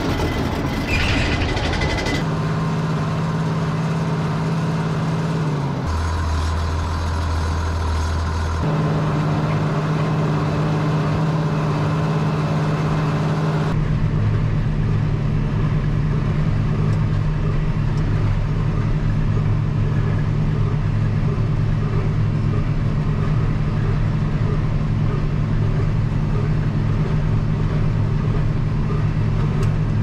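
Farm tractor engine running steadily under load, its pitch jumping abruptly a few times in the first half and then holding steady.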